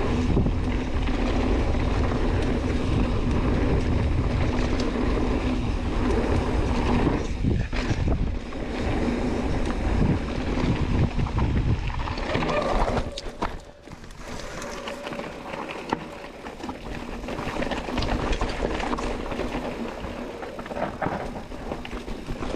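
Wind rushing over the microphone and a downhill mountain bike's tyres rolling over a rocky dirt trail, with knocks and rattles from the bike. The rushing drops off sharply about halfway through, after a few sharp knocks.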